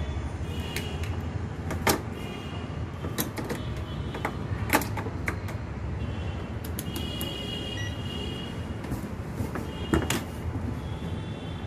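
Steady low background rumble with a few sharp clicks and knocks from handling multimeter probes at an opened LED TV panel. Faint high tones come and go now and then.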